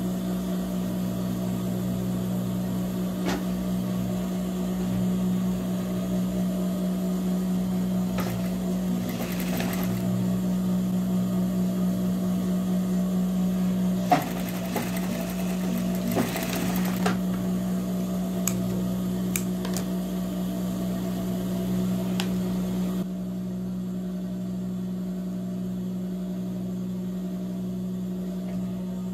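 Industrial lockstitch sewing machine's motor humming steadily, with a few sharp clicks and two brief rustling bursts as denim is handled at the machine.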